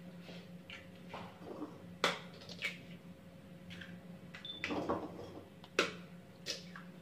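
Hen's eggs being cracked by hand, one after another: several sharp taps and cracks of eggshell a few seconds apart, with shells crackling as they are pulled apart and dropped onto a plastic cutting board.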